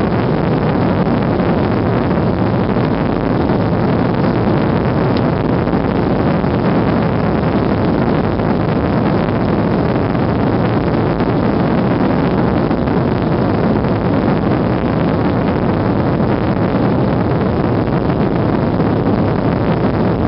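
Steady, even cabin noise of a Boeing 737 airliner's jet engines and rushing air, heard from a passenger seat over the wing as the plane climbs out after takeoff.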